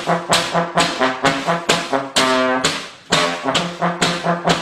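A trombone-like brass instrument playing a quick run of short, punchy notes, about four a second, with one longer held note about halfway through.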